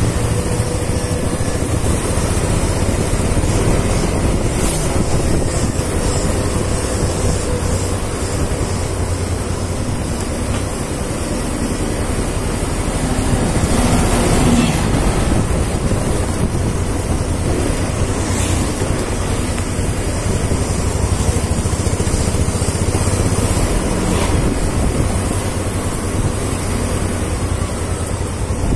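Wind rushing over the microphone of a moving scooter, a steady noise, with the scooter's small engine running underneath; it swells slightly about halfway through.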